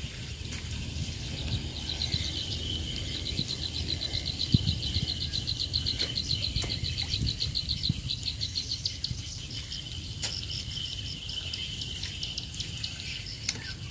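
Insects calling in a fast, even run of high-pitched chirps over a steady high buzz, strongest in the middle and fading after about nine seconds. A low rumble and a few faint clicks sit underneath.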